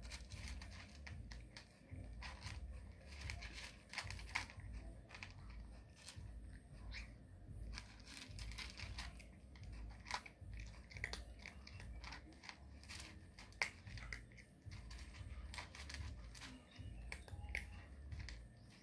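A cat eating: irregular crunching and chewing, with sharper crunches now and then.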